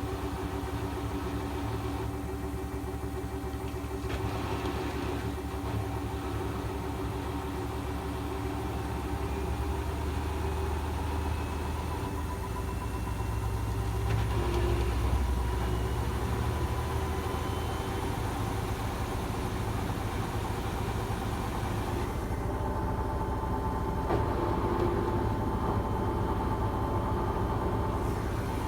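Gorenje washing machine on its final spin: the motor whines steadily over a deep rumble from the spinning drum, and the rumble grows heavier about a third of the way in, then eases.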